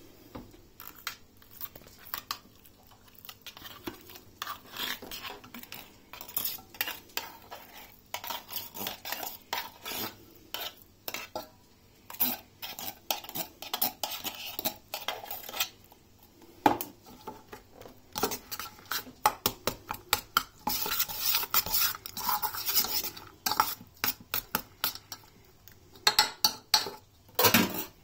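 A spoon scraping wet dog food out of a metal tin and stirring it into kibble in a stainless steel bowl. Repeated clinks and scrapes of metal on metal, busiest in the second half.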